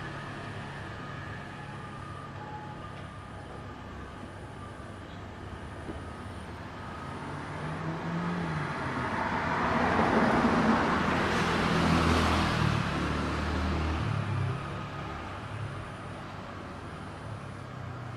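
Street traffic running steadily, with one vehicle passing close: its engine and tyre noise grow louder about halfway through, then fade away again.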